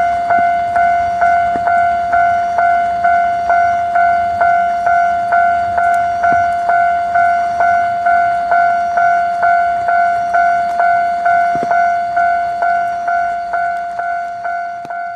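Japanese railway level-crossing warning bell (electronic kan-kan alarm) ringing on and on, about two strikes a second with each strike dying away, growing fainter near the end. The crossing's signalling was faulted by a lightning strike, leaving some crossings ringing nonstop.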